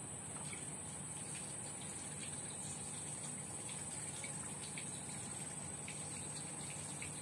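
Steady outdoor ambience: a continuous high-pitched insect drone over a low hiss, with faint short chirps now and then.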